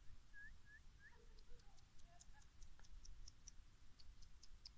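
Near silence, with three faint short rising whistles in the first second, followed by a run of faint, very short high ticks.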